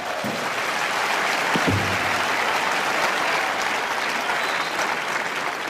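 Stadium crowd applauding after a point in a tennis match. The applause swells in over the first second, holds steady, then eases slightly near the end.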